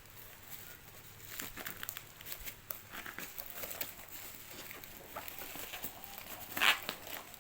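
Packaging crinkling and rustling as it is handled, in many small irregular crackles, with one louder crinkle near the end.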